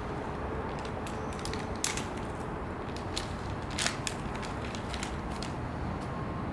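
Scattered small clicks and taps of metal clamp parts and Allen screws being handled and fitted, a few louder knocks about two and four seconds in, over a steady low background hum.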